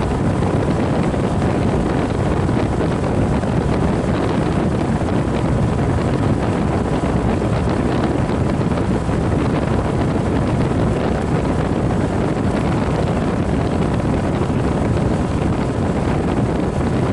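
Walk-in freezer condensing unit running: a steady rush of air from the condenser fan over the compressor's hum, with a faint steady tone. The condenser coil is plugged with dust and the head pressure is high.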